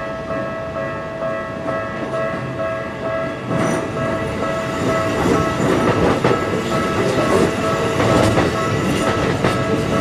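Level-crossing alarm bell ringing with a steady tone while a Keikyu 2100 series electric train comes up. About three and a half seconds in, the train reaches the crossing: a loud rumble with the clack of its wheels over the rail joints, growing as the cars pass close by.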